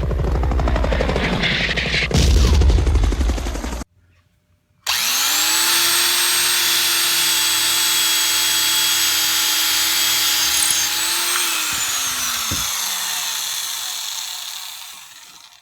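Vintage Thor quarter-inch electric drill running free: after a short cut it spins up quickly to a steady high whine, runs for about six seconds, then is switched off and winds down with falling pitch. Before that, a few seconds of louder rumbling noise.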